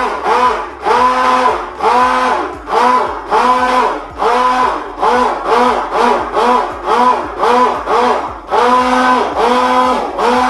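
Immersion (stick) blender pulsed in short bursts about twice a second in a bowl of goat milk soap batter. Its motor whine rises, holds and falls with each burst, as the batter is blended toward trace.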